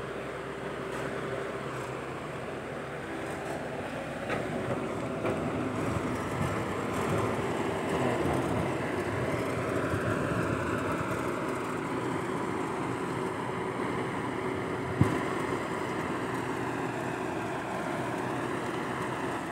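Komatsu PC120-5 crawler excavator running and digging in soil, its diesel engine working steadily with a steady whine over it. A single sharp knock about fifteen seconds in.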